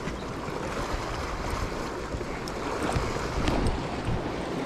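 Sea washing against shoreline rocks, with wind rumbling on the microphone; the wash swells louder a little past halfway, and a few faint clicks sound over it.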